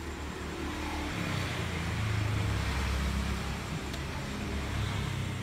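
A low rumble with a hiss over it, swelling to its loudest about two seconds in and then easing off.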